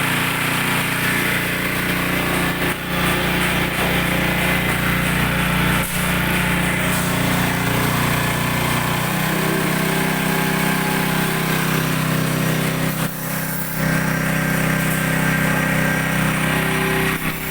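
Coconut milk press machine running steadily, a loud motor drone whose note shifts slightly about nine seconds in.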